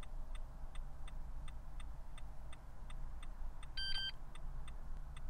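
Nissan Altima's hazard-light flasher ticking steadily, about three ticks a second, over a low hum. A short electronic beep sounds a little under four seconds in.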